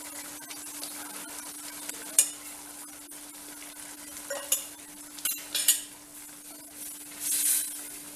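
A metal spoon clinks a few sharp times against a steel kadai as powder is tipped into simmering curry, then a wooden spatula scrapes and stirs through the thick gravy near the end. A steady low hum and a faint simmer run underneath.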